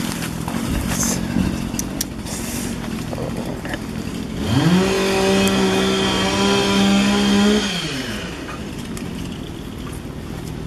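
Two-stroke chainsaw throttled up: its engine note climbs sharply about four seconds in, holds at full revs for about three seconds, then winds back down. A steadier, lower engine hum runs under it.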